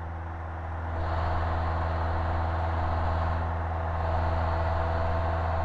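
Cessna 150's Continental O-200 four-cylinder engine and propeller droning steadily at climb power, heard from inside the cabin. It gets a little louder about a second in.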